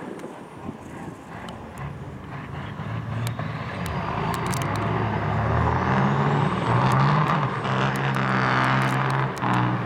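Big-rig diesel engines on two semi-trucks revving hard at the drag-strip start line, building up and at full loudness from about four seconds in, with a burnout spinning one truck's rear tires. A faint high whistle rises above the engines.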